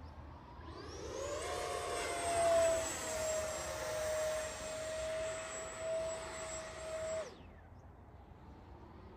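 Electric ducted-fan whine of an FMS Rafale RC jet's 80 mm fan, running at high throttle as the model flies: a steady high whine over a rushing hiss. It swells in about half a second in and drops away quickly near the end.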